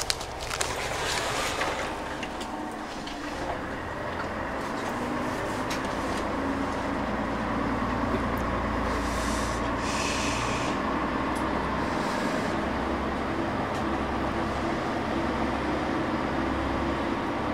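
Diesel railcar (Tango Railway KTR8000 'Tango no Umi') heard from inside the passenger car. The engine and running gear rumble and grow louder over the first several seconds as the engine pitch steps upward, as the train pulls away and gathers speed. A few sharp clicks sound near the start.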